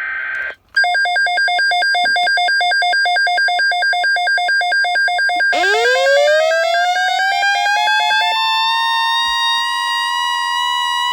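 Emergency weather alert tones ahead of a NOAA Weather Radio tornado watch. The tail of a short buzzing data burst comes first. Then electronic beeping rapidly alternates between two pitches. About five seconds in, this gives way to a rising siren-like wail, and a steady high tone joins it about three seconds later.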